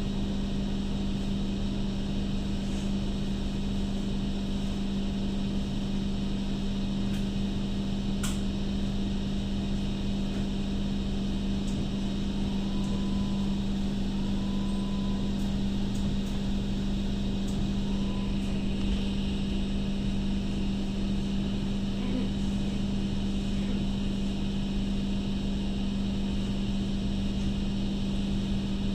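MTR Light Rail Phase I car running along the track, heard from inside the passenger cabin: a steady low hum over even running noise.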